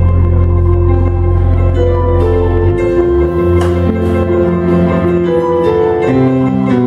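Live band playing an instrumental passage on electric keyboard, electric guitar, bass and drums. Held chords sit over a moving bass line, with occasional cymbal strikes.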